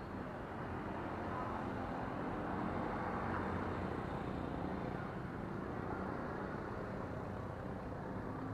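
Steady rumble of road traffic, swelling slightly about three seconds in as a vehicle passes.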